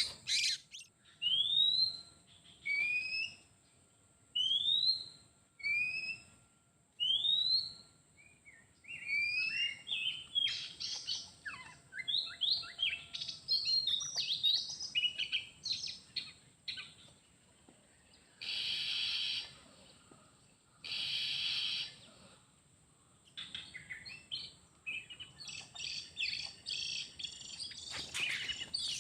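Oriental magpie-robin (kacer) singing: clear rising whistles about once a second, then a quick run of varied chirps and whistles. Two harsh, buzzy calls about a second long come in the middle, followed by more chirping.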